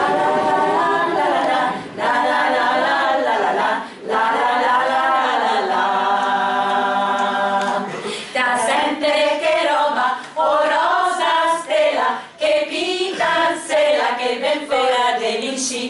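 A small group of women singing unaccompanied, in phrases with short breaks. A long held note comes about six seconds in, followed by a quicker, more ornamented passage.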